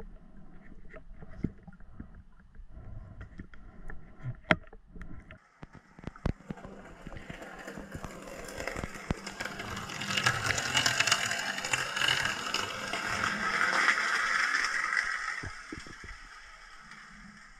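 Underwater sounds picked up by a submerged camera: scattered clicks and knocks, then a rushing hiss that builds about halfway through and fades near the end.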